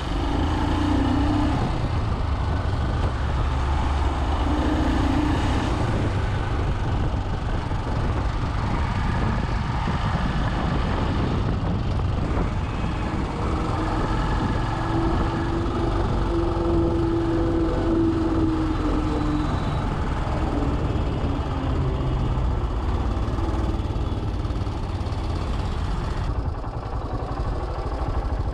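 Royal Enfield Himalayan's single-cylinder engine running while riding through city traffic, under heavy low wind rumble on the camera's built-in microphone.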